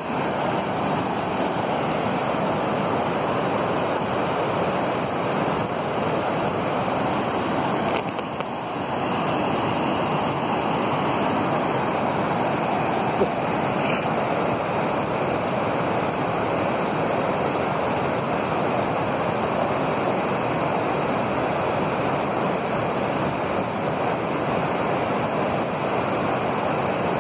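Fast mountain river rushing over rocks in white-water rapids, a loud, steady rush of water.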